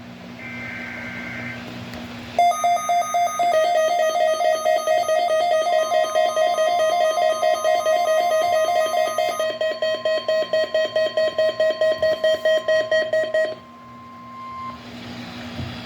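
NOAA Weather Radio Required Weekly Test signals. The end of a SAME data burst gives a short two-tone warble in the first second and a half. A loud pulsing electronic alarm then beeps about three to four times a second for roughly eleven seconds, and the steady 1050 Hz warning alarm tone joins about six seconds in and outlasts the beeping by about a second, over a steady low radio hum.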